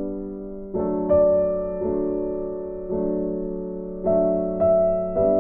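Background music: a piano playing slow chords, a new chord struck about every second and left to fade.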